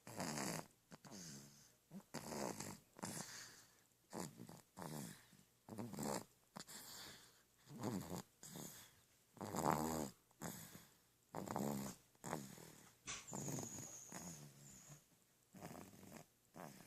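A sleeping baby snoring, a rasping, rattling snore with nearly every breath, about one a second, the loudest near the middle.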